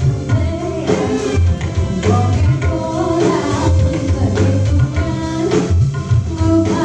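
Dangdut music played loud through a PA sound system: heavy bass and hand-drum rhythm with a singing voice over it.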